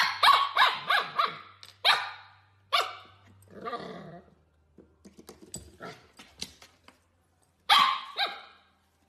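Husky puppy yipping and barking in short bursts: a quick string of about five calls at the start, single barks every second or so after, a pause with light clicks, and one last loud bark near the end.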